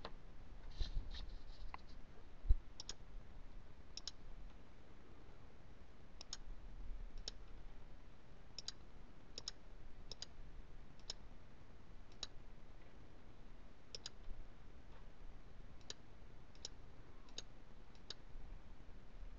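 Faint computer mouse button clicks, about seventeen at uneven intervals, as options on a form are ticked. One low thump about two and a half seconds in is the loudest sound.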